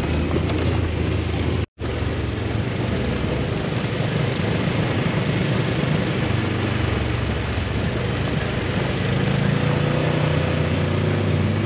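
Side-by-side UTV engine running steadily under way, with tyre and trail noise over rough gravel, heard from inside the open cab. The sound cuts out for a moment about two seconds in, and the engine note rises a little near the end.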